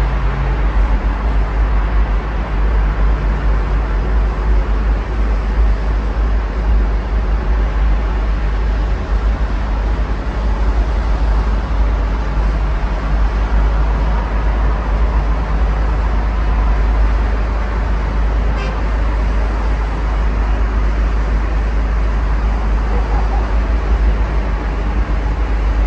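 Steady road traffic noise from cars on the road below, an even wash of tyre and engine sound with a constant deep rumble underneath.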